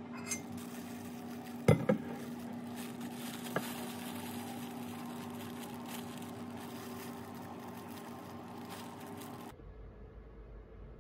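A plastic snack bag crinkling as it is handled, with a sharp double knock about two seconds in as a drink bottle is set down on the desk, and a lighter tap a little later. A steady low hum runs underneath.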